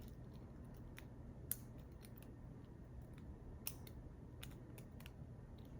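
Faint, irregular small metallic clicks of a lock pick and tension wrench working the pin stacks inside a PacLock 90A-Pro padlock, over a low steady hum.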